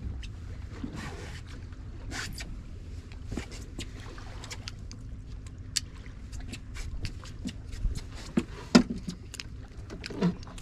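Steady low rumble of water and wind around a drifting fishing boat, with many scattered sharp clicks and knocks of gear being handled on deck. The loudest knock comes near the end.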